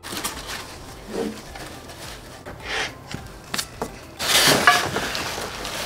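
Foam packing sheet and plastic wrap rustling and crinkling as flat-packed desk panels are handled in their carton, with small knocks of the boards. The rustling gets louder about four seconds in.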